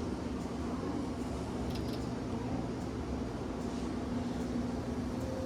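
Steady low machine hum, with a few faint clicks about two seconds in.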